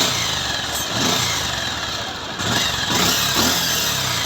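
Bajaj Pulsar UG5 single-cylinder engine running with an abnormal mechanical noise, its revs swelling up and down a few times. On teardown the noise was traced to a worn timing chain and damaged balancer weight and gear.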